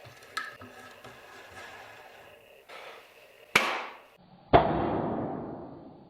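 Two sharp metal strikes about a second apart, the second the loudest, ringing out and fading over about a second and a half.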